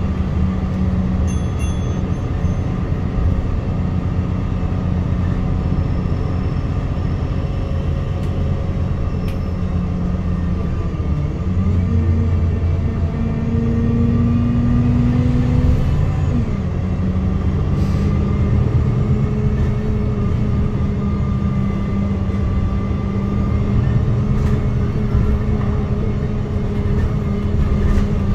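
Alexander Dennis Enviro200 MMC single-deck bus heard from inside the passenger saloon, its diesel engine running as the bus drives along. A little under halfway through, the engine note rises and then drops back a few seconds later.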